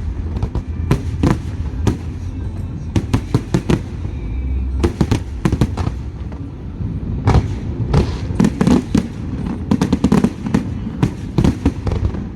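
Aerial fireworks bursting: dense clusters of sharp bangs and crackles over a continuous low rumble.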